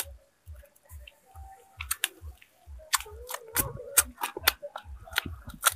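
A person eating charred, straw-grilled snakehead fish: chewing in a steady rhythm of about three strokes a second, with sharp crackles as the burnt skin and flesh break, more of them in the second half.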